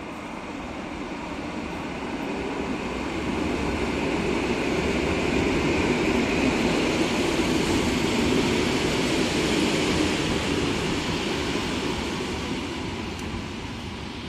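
EN57AL electric multiple unit rolling into the station past the platform, a steady rumble and hiss of the train on the rails that swells to its loudest midway and fades as it goes by.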